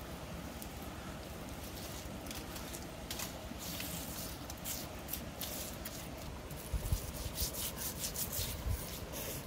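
A hand rubbing chili seasoning paste into the skinned flesh of a whole crocodile: a run of short scraping strokes, thickest in the second half, with a few dull low bumps near the end.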